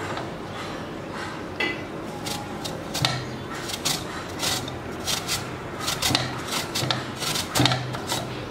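A peeled raw potato being shredded on a flat stainless-steel grater: repeated rasping scrapes, about two strokes a second.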